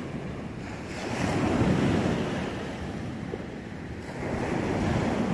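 Sea waves washing in on the shore, swelling twice, with wind on the microphone.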